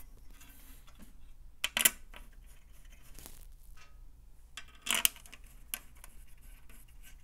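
Small metal clicks and taps of screws being handled and set loosely into the holes of a heat press's metal control housing: a few sharp clicks spaced well apart, with a soft rustle between them.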